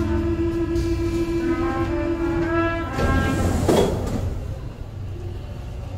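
Paris Métro train's door-closing buzzer sounding steadily for about three seconds. The sliding doors then shut with a burst of noise and a thump just before four seconds in, over the low rumble of the stopped train.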